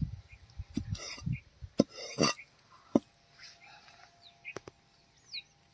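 Heavy cleaver chopping goat liver and kidney on a wooden chopping block: five sharp chops in the first three seconds, then it goes quiet apart from a few faint high chirps.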